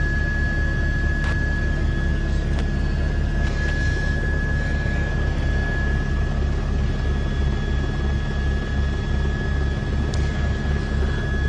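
Helicopter running steadily, heard from inside the cabin: a rapid low beating from the rotor under a constant high whine.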